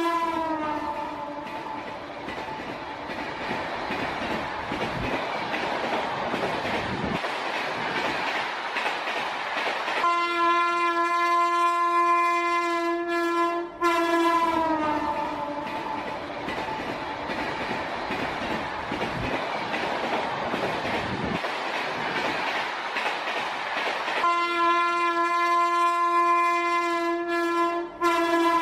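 Passenger train running on rails with a steady rumble and clatter of wheels. Three long horn blasts sound over it, just at the start, about ten seconds in and about twenty-four seconds in; each holds a steady chord for a few seconds, then drops in pitch as it fades.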